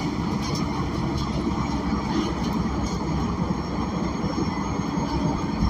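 Interior of a Gillig BRT Plus transit bus on the move: the Cummins Westport L9N natural-gas engine and Voith automatic transmission running under a steady low rumble of road and cabin noise, with no air conditioning running.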